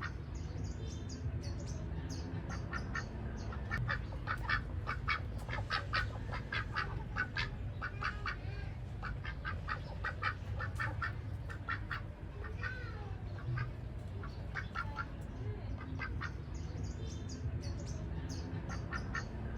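Ducks quacking, many short calls coming in quick overlapping runs throughout, over a steady low rumble.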